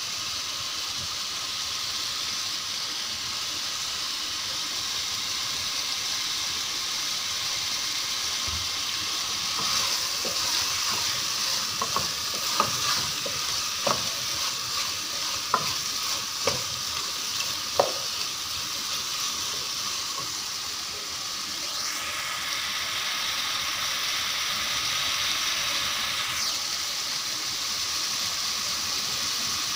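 Boneless chicken pieces sizzling in ghee and spices in an aluminium pot while being stirred with a wooden spoon, the raw chicken frying until it turns white. A steady frying hiss, with a run of sharp knocks of the spoon against the pot in the middle.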